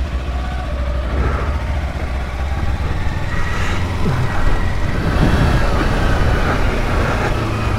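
Kawasaki Versys-X 300's parallel-twin engine running under way, a steady low hum beneath rushing wind and road noise on the microphone.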